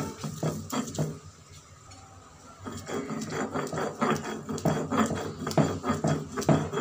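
A stone roller is worked back and forth on a flat grinding stone (shil-nora), crushing wet pennywort leaves to a paste. It makes rhythmic rubbing knocks, about three a second. About a second in the strokes pause for a second and a half, then resume.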